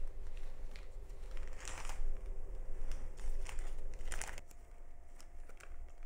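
Rustling and crinkling handling noises, two louder rustles about two and four seconds in, with a few light clicks between.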